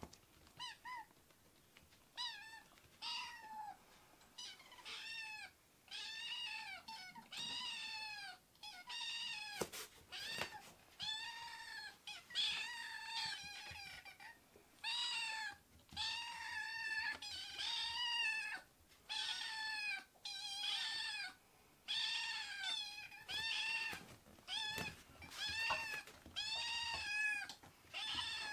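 Two young kittens meowing over and over in high, arching mews, one or two a second and sometimes overlapping, begging to be fed.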